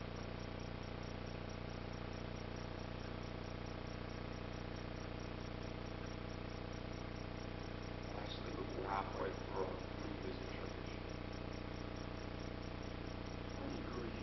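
Steady electrical hum from the church's sound system and room during silent prayer, with a few faint murmured words about eight seconds in.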